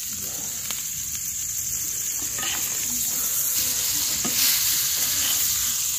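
Fish shallow-frying in hot oil in a black pan, a steady sizzle, with a metal spatula scraping and turning the fish a few times.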